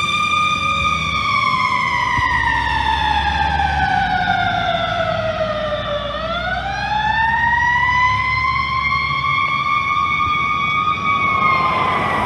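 Aerial ladder fire truck's siren wailing: one slow fall in pitch over about five seconds, then a climb back up, with the truck's engine rumbling underneath.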